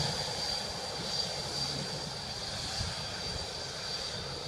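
Boeing 787-8's Rolls-Royce Trent 1000 turbofans running as the airliner rolls along the runway: a steady high whine over a broad rushing rumble.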